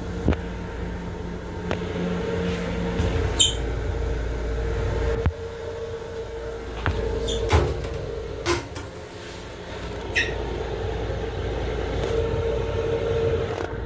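Interior sound of a Long Island Rail Road M7 electric railcar, heard from its small restroom: a steady low rumble with a constant hum, broken by several short sharp clicks and squeaks from the car's fittings, the sharpest about seven and a half seconds in.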